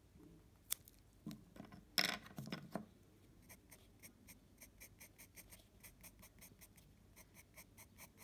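Pencil scratching on paper in short, even shading strokes, about three or four a second. In the first three seconds come a few sharp clicks and a louder burst of scratching, the loudest about two seconds in.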